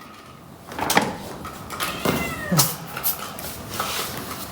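A cat meowing once, a falling call about two seconds in, with a sharp click about a second in.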